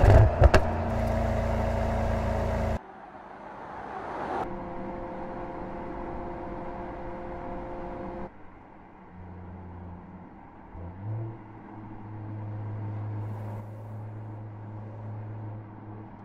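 Mercedes-AMG GT 4-door coupé exhaust: a few sharp pops in the first half-second over a loud engine note. About three seconds in it cuts abruptly to a much quieter steady engine hum, which changes pitch a few times and rises slightly around eleven seconds.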